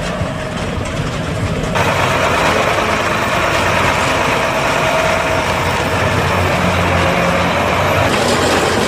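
John Deere tractor's diesel engine running steadily, hitched to a Kaweco forage wagon, becoming abruptly louder and fuller about two seconds in.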